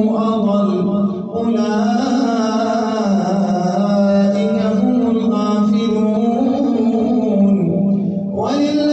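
A male imam chanting Quran recitation in a single voice, melodic and drawn out, with long held notes that glide slowly up and down. It breaks briefly about a second in and again just before the end.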